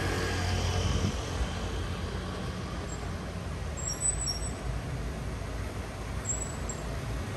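Street traffic: motor vehicles running and passing with a steady low rumble, a little louder about a second in.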